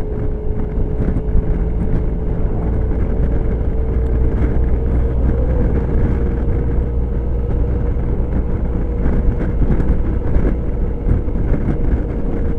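Suzuki Burgman scooter cruising at steady speed: the engine runs evenly with a steady whine that creeps up slightly in pitch a few seconds in, under heavy wind rush and road rumble.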